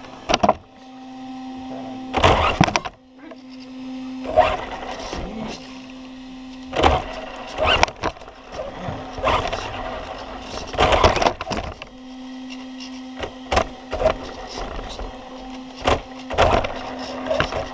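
Electric motor of an off-road RC car, heard from a camera mounted on the car, whirring in short irregular bursts of throttle as it drives and bumps across carpet. A steady low hum runs under the bursts, cutting out briefly twice.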